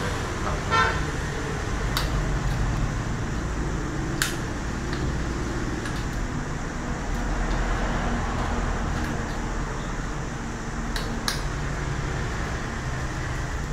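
Steady street-traffic rumble with a short vehicle horn toot about a second in. A few sharp clicks from a plastic tripod being handled.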